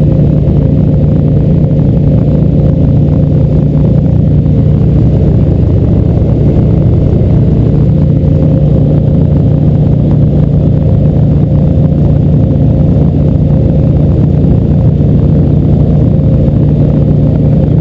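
Boat's outboard motor running steadily at cruising speed, a loud, unbroken drone with no change in pitch.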